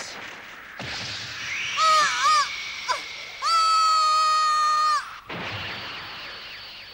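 Cartoon football action sounds: a whoosh, a short high cry with wobbling pitch, then a long, high, held shout lasting about a second and a half as the goalkeeper dives for the ball. Another whoosh follows near the end.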